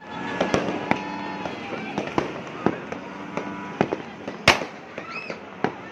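New Year's fireworks going off around a neighbourhood: a string of sharp bangs and pops at uneven intervals, with one especially loud bang about three-quarters of the way through.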